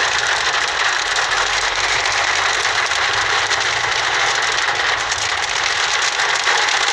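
Large hailstones pelting a vehicle in a dense, steady crackling patter, with an engine running low underneath.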